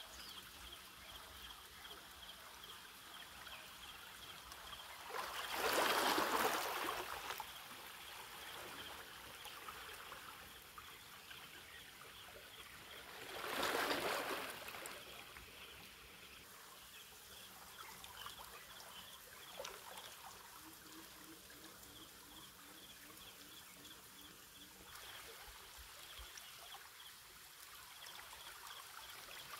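Small waves lapping and trickling against shoreline rocks, with two louder washes of water about eight seconds apart.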